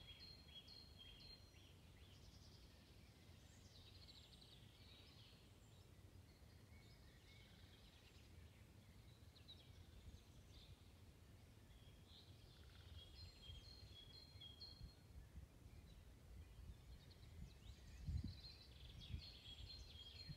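Faint songbirds singing in a forest, with phrases of short, high, repeated notes that come and go. A low rumble of wind on the microphone runs underneath, with a brief low bump about 18 seconds in.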